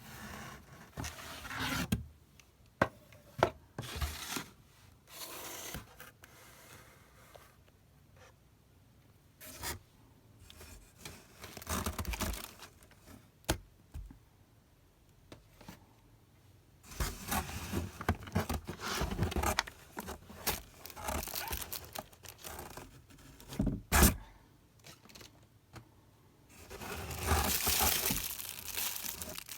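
Plastic and paper packaging being torn open and crinkled by hand, in repeated bursts of tearing and rustling with quiet gaps and a few sharp clicks and knocks between.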